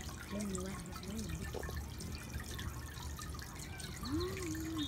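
Water from a stone garden fountain trickling and dripping steadily.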